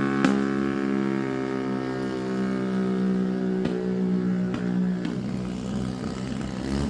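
TVS Ronin 225's single-cylinder engine running at a steady, even pitch while riding, with a few short clicks.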